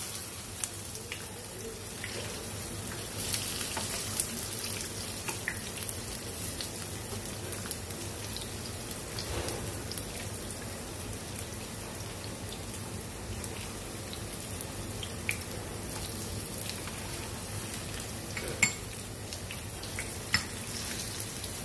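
Potato kebabs shallow-frying in oil in a nonstick pan, giving a steady sizzle. Now and then a metal spatula clicks and scrapes against the pan as the kebabs are flipped.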